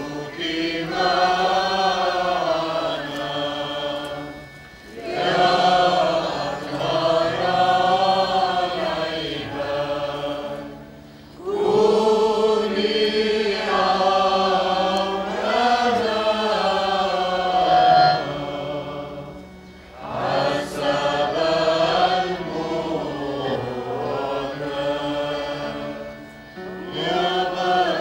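A choir chanting a Maronite liturgical hymn in long, wavering melodic phrases, with brief pauses between them.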